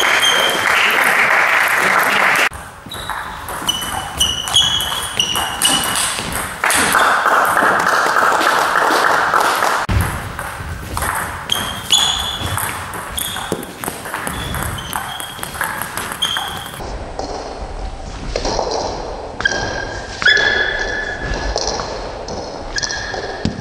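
Table tennis rallies: the ball is struck back and forth, with sharp clicks on the bats and bounces on the table, each with a short high ping. Between rallies there are stretches of a louder, even noise.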